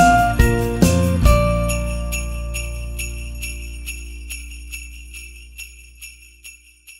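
Ending of a country Christmas song: the band hits its final accents, then the last chord rings and slowly fades while sleigh bells keep shaking about twice a second, dying away near the end.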